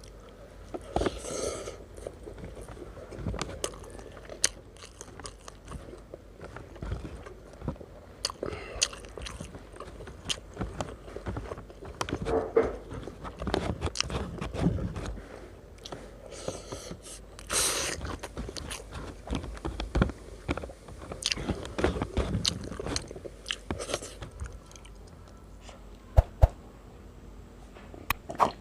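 A person eating roasted chicken rice, biting and chewing with irregular crunches and many short mouth clicks and smacks.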